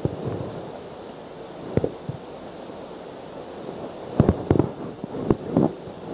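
Marker pen knocking and tapping against a whiteboard during drawing: a single knock about two seconds in, then a quick run of knocks around four to six seconds in, over a steady hiss.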